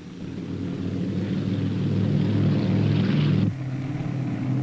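Piston engines and propellers of a four-engine propeller airliner, a steady drone in flight that grows a little louder. About three and a half seconds in it cuts abruptly to a lower, quieter drone of a second propeller airliner.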